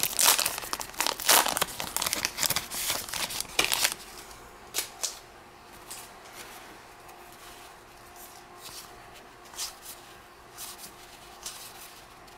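A trading-card pack wrapper crinkling and tearing open for about four seconds, then quieter, scattered soft flicks as the cards are handled and leafed through.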